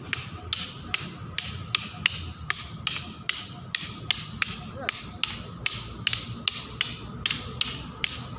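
Wooden fighting sticks clacking against each other in a stick-fighting drill, sharp strikes in a steady rhythm of about three a second.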